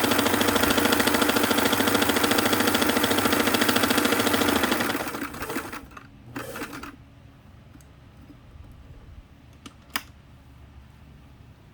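Singer 327K sewing machine running at speed and stitching, then slowing and stopping about five seconds in. A few light clicks follow, with one sharper click near the end.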